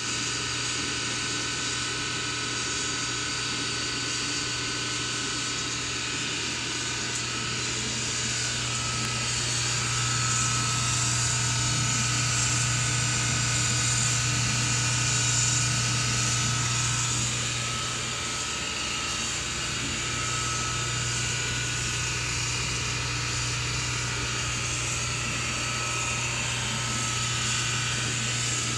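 SPT countertop dishwasher running its wash cycle with a very loud, steady noise: a low hum with a steady whine over a hiss, a little louder for a while near the middle. The noise comes only during washing, not draining, and the owner wonders whether it comes from the pump.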